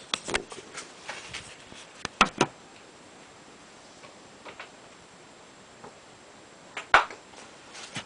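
Scattered short knocks and clicks of tools and metal parts being handled at a workbench: a few at the start, two quick ones a little after two seconds, and one loud knock about seven seconds in.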